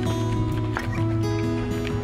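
Background music: held notes that change pitch in steps over a steady low note, with a few light strikes.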